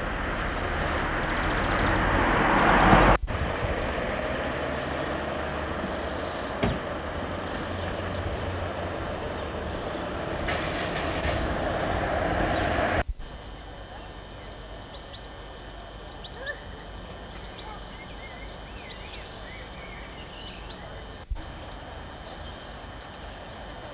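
Road traffic going past close by, the noise swelling as vehicles pass and cutting off suddenly twice. Then, over a quieter background, birds singing with many quick, high chirps.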